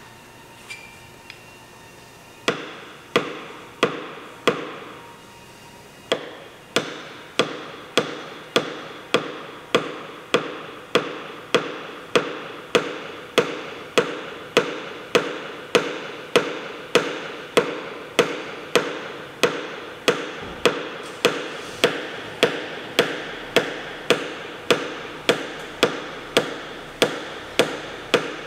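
Paintless dent repair tapping: a small hammer striking a knockdown tool against an Audi Q5 door skin, knocking down a high crease line near the hinge. A few scattered taps, then steady taps about twice a second, each with a short metallic ring.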